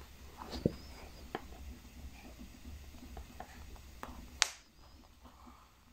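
Faint handling sounds of hand embroidery: soft rustles and small clicks as a needle and embroidery floss are pulled through cloth to form a knot, with one sharp click about four and a half seconds in.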